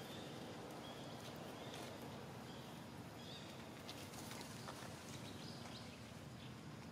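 Faint outdoor background noise with short, high animal chirps repeating about once a second, and a few light clicks about four seconds in.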